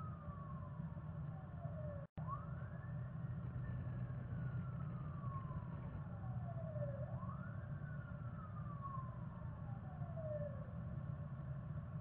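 Siren wailing, each cycle rising quickly and then falling slowly over a few seconds, about three falls in all, over a steady low hum. The sound cuts out for an instant about two seconds in.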